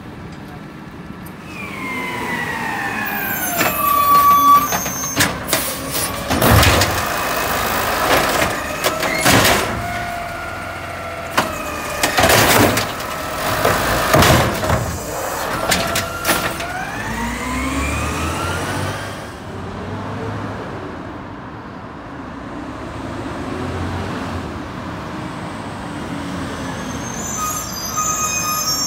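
Automated side-loader garbage truck emptying a curbside cart. The engine and hydraulics whine up and down in pitch as the arm moves, and a run of loud bangs comes as the cart is dumped and knocked against the hopper. Afterwards the truck runs more quietly.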